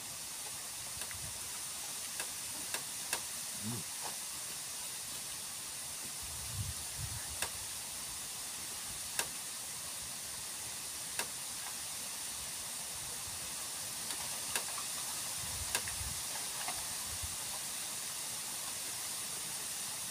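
A steady high hiss, with scattered faint clicks and soft taps as ripe mangoes are handled and eaten by hand.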